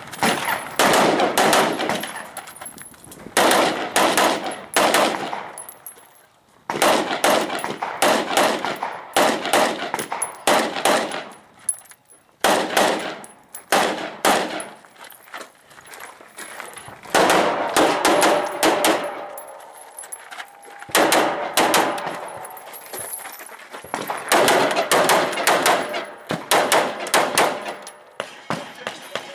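Rapid semi-automatic fire from a Mega Arms Megalithic AR-15 rifle, shot after shot in several fast strings broken by short pauses.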